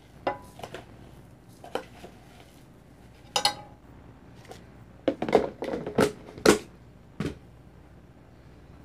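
A cooking utensil and a plastic food container clinking and knocking against a frying pan as food is spooned into it: scattered sharp clicks, with a busier run of louder knocks about five to six and a half seconds in.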